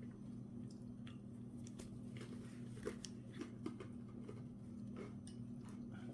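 Scattered light clicks and ticks of small lock parts being handled as the tumblers and key are worked in a Ford ignition lock cylinder, with two sharper clicks about three seconds in. A steady low hum runs underneath.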